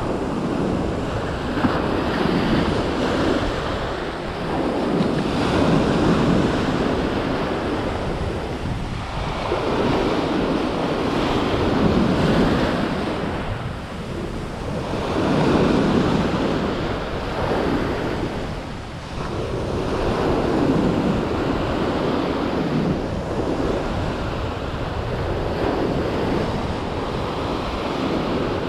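Small ocean waves breaking and washing up a sandy shore, the surf swelling and falling back every few seconds.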